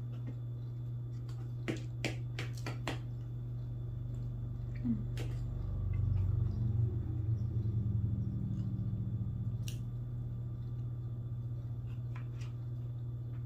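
Metal knife and fork clicking against a plate while cutting through a stack of pancakes, with a cluster of sharp clicks about two seconds in and a few more later, over a steady low hum.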